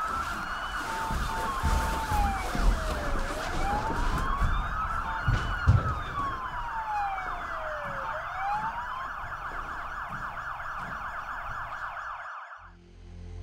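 A wailing siren sweeping slowly down and up in pitch, over a dense steady electronic drone, with a few low thumps about five and a half seconds in. It all cuts off about a second before the end.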